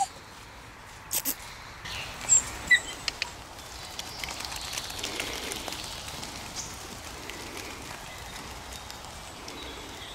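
Outdoor woodland ambience: a steady faint hiss with a few short bird chirps, and some sharp clicks and knocks in the first three seconds.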